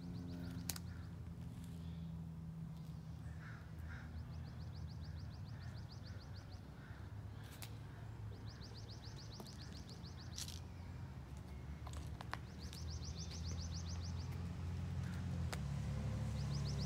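A bird repeats a rapid, high trill about every four seconds over a low steady hum. The hum grows louder near the end.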